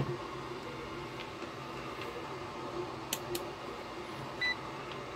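A digital multimeter being handled and switched on: a couple of light clicks, then one short high beep about four and a half seconds in. A low steady hum lies under it.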